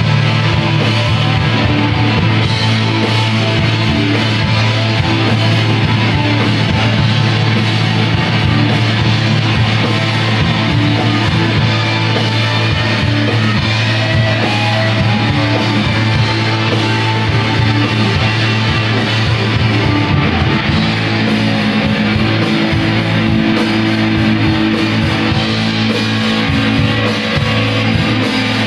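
Rock band playing live with several electric guitars over a sustained low bass, loud and dense throughout; the bass note shifts about two-thirds of the way through.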